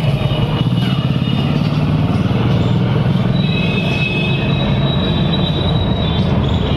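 Loud, steady mechanical rumble of passing heavy traffic, with thin high steady whining tones coming in about halfway through.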